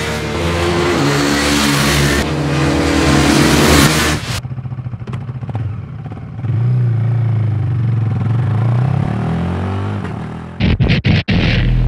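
Single-cylinder KTM RC sport bike engines revving hard at speed, the pitch rising, until a sudden cut about four seconds in. Then a KTM RC 390 runs at low revs with a steady, deeper note. Near the end come a few short, loud bursts that stop abruptly.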